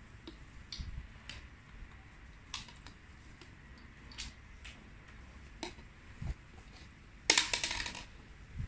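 Clear plastic suction cups and hose connectors being handled: scattered light clicks and knocks, with a quick clattering rattle about seven seconds in, the loudest part.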